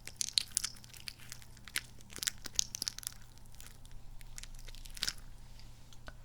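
Sticky, squelching crackles from a soft, squishy kidney-bean toy being squeezed, coming as irregular clusters of small clicks. They are dense for the first three seconds, with another burst about five seconds in.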